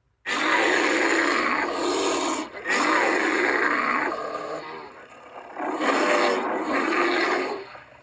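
Asiatic black bear calling: three long, loud, harsh vocalisations of a couple of seconds each, the second trailing off more quietly before the third.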